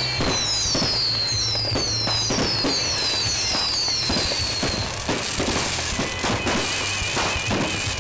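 New Year's Eve fireworks going off in quick succession: a dense run of bangs and crackles, with a high falling whistle repeating about twice a second over the first five seconds.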